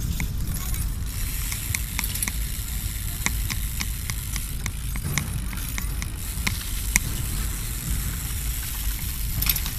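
BMX bike rolling on concrete paving past a moving camera: a steady low rumble of tyres and wind on the microphone, with scattered sharp clicks and ticks.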